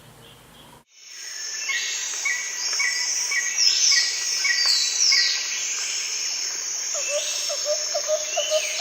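A loud chorus of birds calling, with quick repeated chirps and falling whistles over a steady high insect trill, starting suddenly about a second in. Near the end a rapid run of lower repeated notes joins in.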